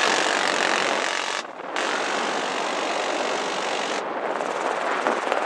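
M134 minigun firing from a UH-1Y Huey's door mount in two long bursts. The first stops about a second and a half in; the second starts a moment later and stops about four seconds in. Helicopter rotor and engine noise runs under the bursts and carries on after them.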